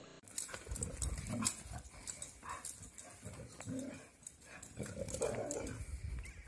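Two dogs at rough play: scuffling and footfalls on dry ground with irregular clicks and knocks, and a few short dog vocal sounds.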